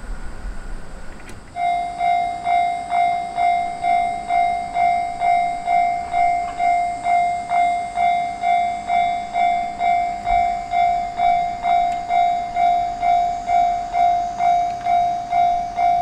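Japanese railway level-crossing warning bell ringing, an even, repeating ding of about two strikes a second. It starts about one and a half seconds in, as the crossing signals warn of an approaching train.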